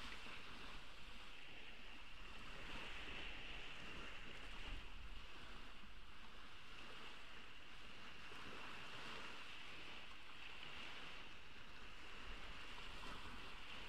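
Ocean waves washing onto a beach: a steady wash that swells and fades every few seconds over a low rumble.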